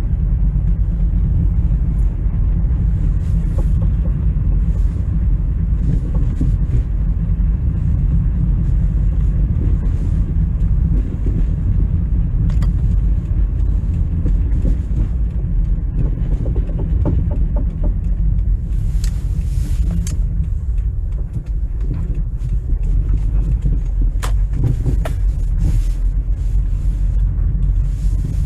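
2006 Toyota Camry on the move: a steady low rumble of road and drivetrain noise, with a few short sharp clicks about two-thirds of the way through and again a few seconds later.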